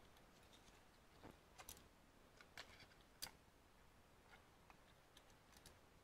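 Near silence: room tone with a few faint, scattered clicks and taps, the sharpest about three seconds in.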